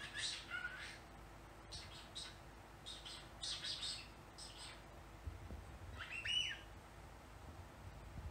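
Cockatiel vocalizing: a falling call at the start, then clusters of short, rapid chirps, and a rising whistled note about six seconds in.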